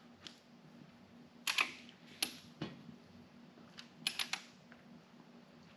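Sharp metallic clicks of a click-type torque wrench and socket being worked on a big-block engine's connecting-rod bolts, a few single clicks and then a quick run of three or four clicks about four seconds in as the wrench is pulled.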